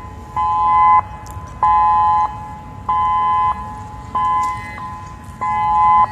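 Refinery alarm sounding in short, even blasts of a steady two-note tone, five of them, about one every second and a quarter; the refinery called it a test.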